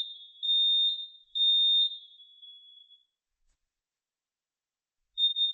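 Combination smoke and carbon monoxide detector sounding its fire alarm during a test: three high-pitched beeps about half a second each, the standard three-beep smoke evacuation pattern, followed by a pause. Near the end it starts a run of quick short beeps as it moves into its carbon monoxide alarm.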